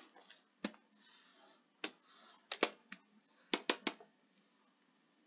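About eight short clicks of a computer keyboard and mouse, spread unevenly over the first four seconds, with soft rustling between them.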